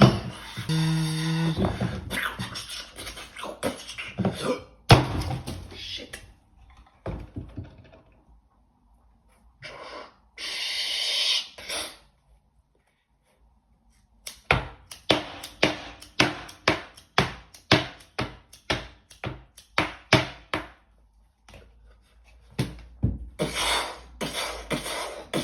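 A person making sound effects with their mouth, beatbox-style: hisses, pops and a pitched voiced noise, then about six seconds of sharp clicks at roughly two or three a second, with short pauses between the effects.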